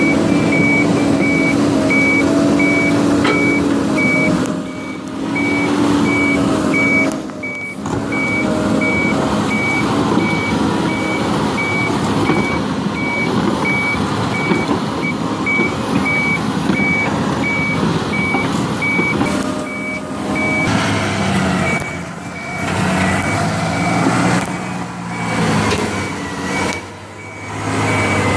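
Reversing alarm on heavy machinery beeping steadily in a high single tone, over a diesel engine running. The sound drops out briefly several times.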